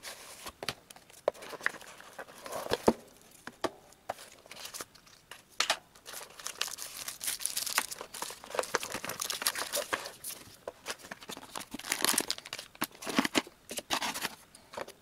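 Cardboard packaging of a smartphone box being unpacked by hand: trays and inserts sliding and tapping, paper and plastic wrappers crinkling and rustling, with scattered light clicks and knocks as items are set down.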